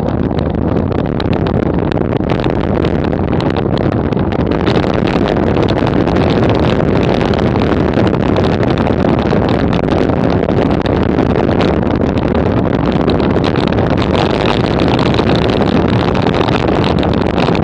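Steady rush of wind over the microphone of a camera mounted on a road bike riding at about 25 mph in a racing pack.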